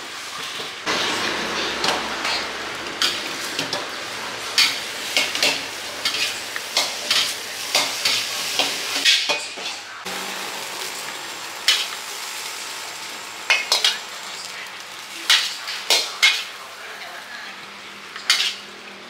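Pad thai frying in a wok with a steady sizzle, punctuated by repeated sharp clanks and scrapes of a metal spatula against the pan.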